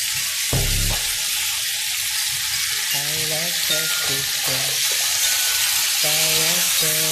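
Chicken pieces frying in hot oil with soy sauce just added: a steady sizzle while a wooden spoon stirs them. There is a dull thump about half a second in.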